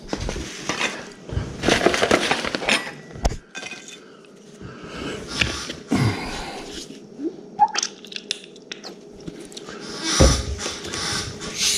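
Fried white perch being broken apart by hand and eaten: irregular crackling and crunching with scattered sharp clicks and knocks.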